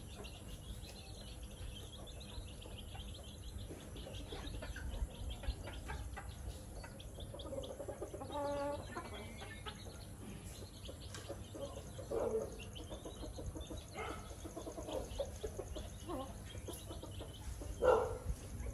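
A small flock of chickens clucking off and on as they peck for food in the dirt, with many small clicks among the calls. A louder call comes near the end.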